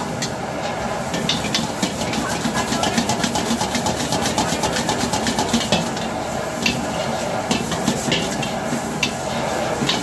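Metal spatula clacking and scraping against a wok as noodles are stir-fried over a high gas flame, over a steady hiss of burner and sizzling. The clacks come in a rapid run through the middle and grow sparser toward the end.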